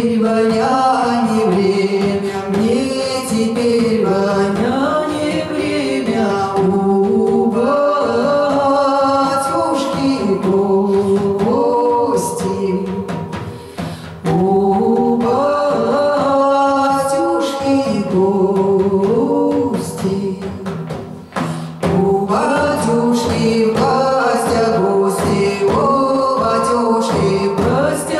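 Women's voices singing a song in long melodic phrases, with brief breaks about halfway through and again about three-quarters of the way through.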